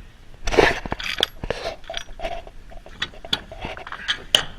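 Irregular metallic clinks, clicks and scrapes from handling pliers and a freshly cut metal trailer-door seal. A louder scrape comes about half a second in.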